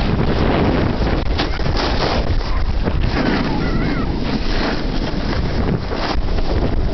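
Wind rushing over the microphone on a fast snowboard descent, with the hiss and scrape of the board's edges over the snow rising and falling in surges.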